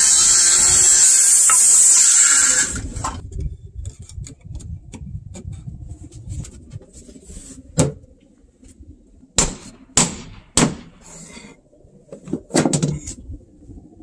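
Circular saw cutting through a wooden floorboard for about three seconds, then stopping. Afterwards come scattered clicks and several sharp wooden knocks as boards are handled and fitted.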